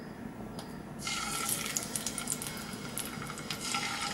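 Hot oil sizzling as scored boiled eggs are set into it to fry. The sizzle starts suddenly about a second in and goes on as a steady hiss with fine crackles.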